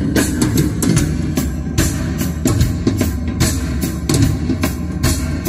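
Live band music with a drum kit, bass drum and guitar, played loud through a car's upgraded audio system (Focal Utopia M midranges, Focal K tweeters, Audison Forza DSP amplifier) and heard in the cabin. The drums hit in a steady, regular rhythm.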